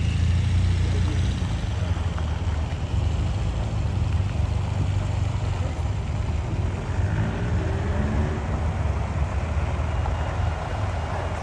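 Motorcade vehicle engines running: a steady low rumble, with a brief rising engine note a little past halfway through.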